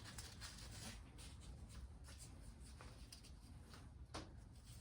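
Near silence with faint scattered clicks and scrapes of hand tools working on an engine, and one sharper click about four seconds in.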